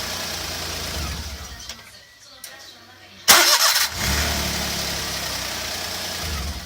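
Daihatsu Hijet Truck S211P starting attempt with a faulty starter motor: a sudden loud harsh burst of noise about three seconds in, followed by a couple of seconds of steady low mechanical running that stops near the end. This abnormal noise comes from the worn starter motor, which intermittently fails to turn the engine and was cured by a rebuilt starter.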